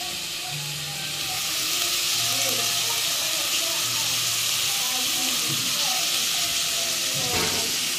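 Rice and green peas frying in an aluminium pot: a steady hissing sizzle, with a single knock about seven seconds in.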